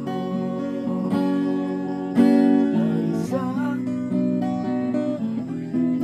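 Acoustic guitar being strummed, chords ringing on from one strike to the next, with a louder strum about two seconds in.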